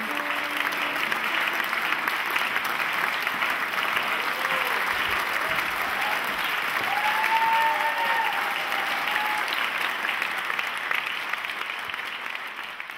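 Large theatre audience applauding steadily after a performance, with a few calls rising over the clapping around the middle. The applause dies away near the end.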